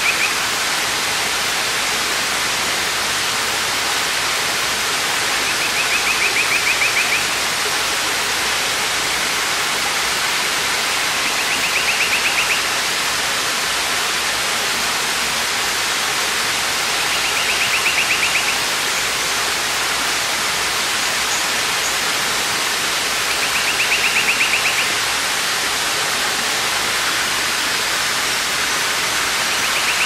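Steady rushing of a waterfall, with a short high trill repeating about every six seconds.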